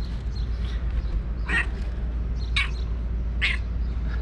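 A crow cawing three times, about a second apart, each caw short and harsh, over a steady low background rumble.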